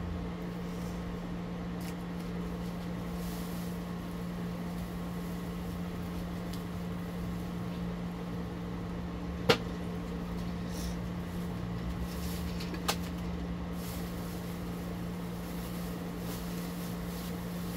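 Steady low hum of a running appliance or fan. There is a sharp click about halfway through and a fainter click about three seconds later.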